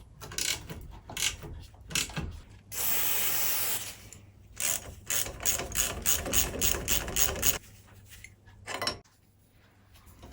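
Ratchet spanner clicking as the bicycle's brake bolts are undone, in a run of about four clicks a second, among scattered knocks of tools on metal. A steady hiss lasts about a second before the run of clicks.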